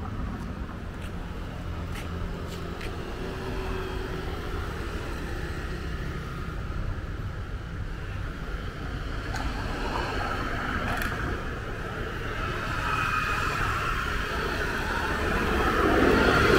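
Street traffic ambience: a steady low rumble of road traffic, with a vehicle passing close and growing louder toward the end.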